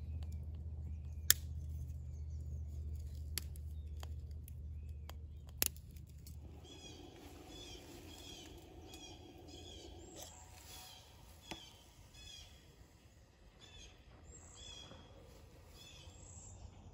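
Twig fire burning in a stainless wood-burning camp stove: a low steady rumble with a few sharp crackles. After about six seconds the rumble drops away and small birds chirp repeatedly.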